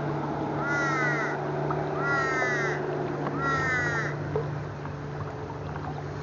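A crow cawing three times, each caw drawn out and about a second and a half apart, over a steady low hum.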